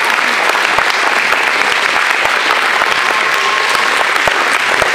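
Wedding congregation applauding: many people clapping steadily at an even level.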